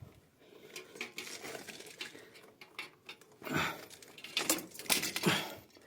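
Light metallic clicks, rattles and scrapes of electrical wires and tools being handled, with a few louder clicks and scrapes past the middle.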